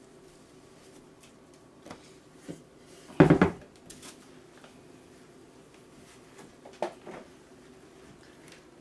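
Kitchen dishes and utensils being cleared and set down on a counter or in a sink: a few light knocks, one loud clatter about three seconds in, and a couple more knocks near the end.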